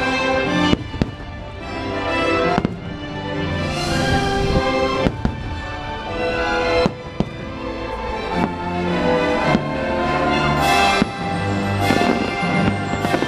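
Fireworks shells bursting with sharp bangs every second or two, over loud music from the fireworks show's soundtrack.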